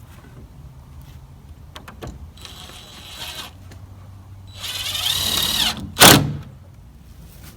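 Power drill running in two short bursts, the second longer and louder with its motor whine dipping and rising in pitch as it drives, followed by a single sharp, loud knock.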